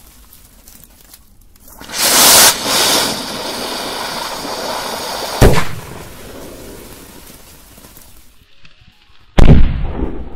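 Firework buried in the ground, with a loud hiss of burning propellant for about three and a half seconds that ends in a sharp bang. A fainter fizzing dies away after it, and near the end a second loud bang goes off.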